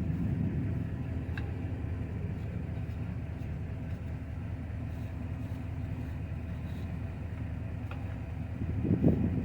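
Truck engine idling steadily, with a brief louder rumble about nine seconds in.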